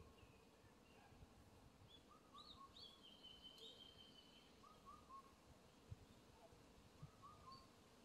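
Faint forest birdsong over a low, steady background rumble. One bird repeats short notes in twos and threes every couple of seconds, and another gives higher chirps and a longer high note about three seconds in.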